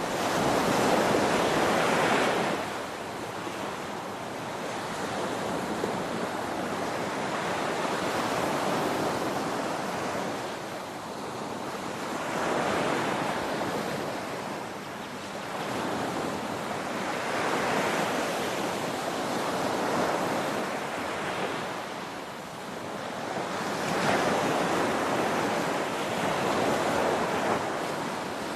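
Ocean waves breaking on a shore, a continuous rush of surf that swells and ebbs every few seconds as each wave crashes and draws back.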